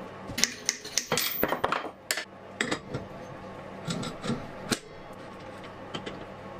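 Metal clattering as a knife blade and metal tools are handled and knocked together: a quick run of sharp clinks and knocks in the first two seconds, then a few more spaced apart.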